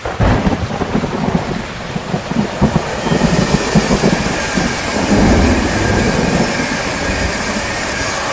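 Heavy rain falling steadily, with thunder rumbling low underneath through the first several seconds and easing off toward the end.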